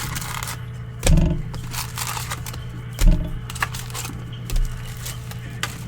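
Trading-card box and pack packaging being handled: light rustling and clicks with two dull thumps, about a second in and about three seconds in, and a softer one near the end, over a steady low hum.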